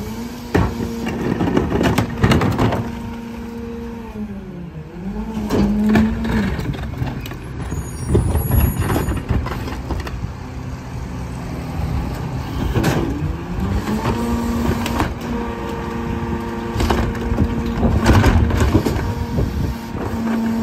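Mack MRU garbage truck's rear-loader packer running: the diesel engine revs up to drive the hydraulics, drops back about five seconds in and revs up again around thirteen seconds as the packing cycle repeats. Carts clank and bang against the hopper as they are tipped, and trash clatters in.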